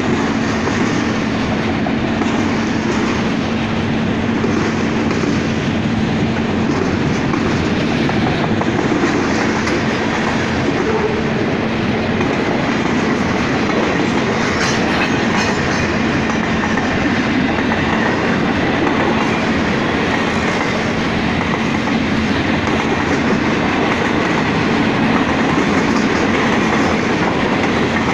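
Freight cars of a long train rolling past close by: steady noise of steel wheels on the rails with rattling of the cars, even in loudness throughout.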